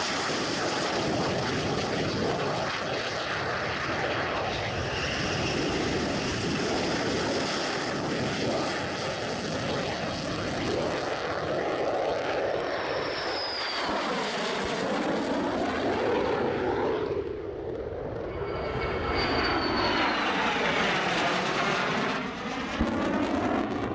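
Military aircraft engines running loud and steady, with two passes overhead about halfway through and again some seconds later, each marked by a falling sweep in pitch.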